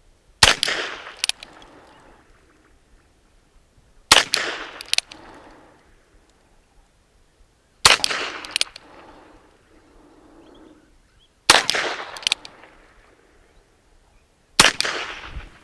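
Ruger Wrangler single-action revolver firing .22 LR rounds one at a time: five sharp shots, about one every three and a half to four seconds. Each shot is followed by a fainter sharp sound less than a second later.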